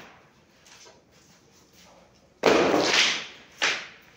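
A long strip of trim knocked and scraped against the floor as it is handled: a loud rough burst about two and a half seconds in, then a shorter one a second later.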